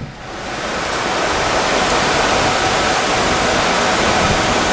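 Steady rushing noise of many cooling fans in racks of network and test equipment. It grows louder over the first second or so as the lab door opens, then holds steady.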